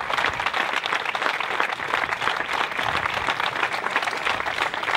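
A crowd applauding: dense, steady clapping from many hands.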